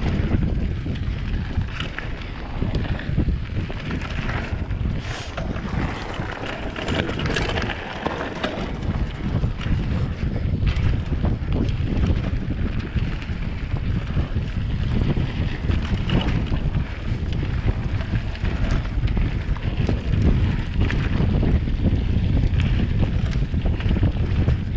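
Wind rumbling on the microphone of a mountain bike being ridden over a gravel trail, with the tyres crunching and the bike rattling over bumps in irregular clicks.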